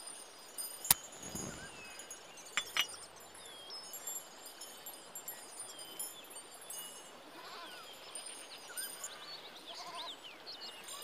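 Faint rural ambience of livestock bleating, with short chirping calls throughout. A single sharp knock comes about a second in, and two quick clicks follow shortly after.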